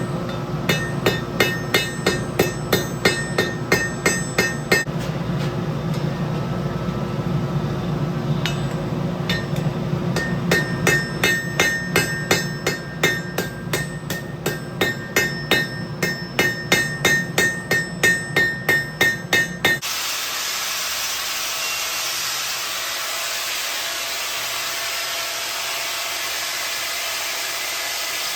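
Hammer blows on hot steel over an anvil, in runs of about three strikes a second, each with a bright metallic ring. About twenty seconds in the hammering stops abruptly and a steady rushing noise carries on.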